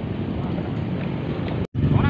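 Wind noise on the microphone, a steady rush, broken by a split-second dropout to silence near the end.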